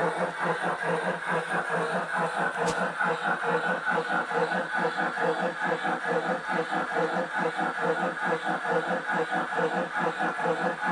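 Digital sound decoder in a garden-railway steam locomotive model playing steady steam chuffing through its loudspeaker, about five even chuffs a second. A single sharp click comes a little under three seconds in.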